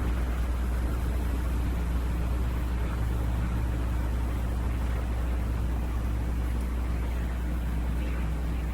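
Helicopter engine and rotor running steadily: a constant low drone with a few steady low tones above it.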